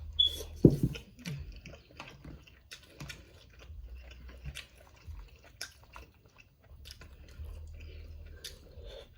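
Close-up chewing and wet mouth smacks from eating seafood boil, with many small irregular clicks.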